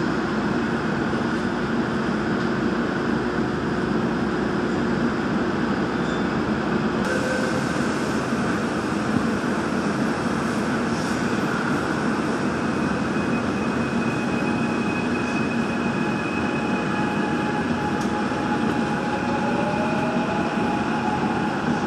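Gwangju Metro Line 1 subway train running through a tunnel, heard from inside the carriage: a steady rumble of wheels and running gear with a few faint steady tones. About seven seconds in, the deep rumble eases and the hiss turns brighter. Near the end, a faint whine rises in pitch.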